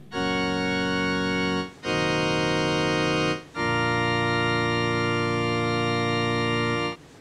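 Organ music: three sustained chords, each held steady, with short breaks between them. The third chord is the longest and cuts off near the end.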